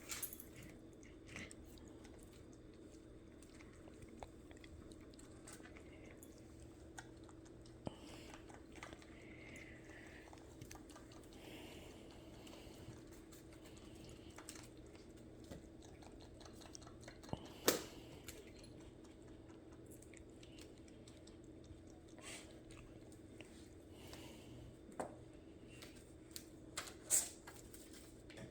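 Faint scattered taps, clicks and scuffs of cats pawing at and biting a toy, over a steady low hum; two sharper clicks stand out, one past the middle and one near the end.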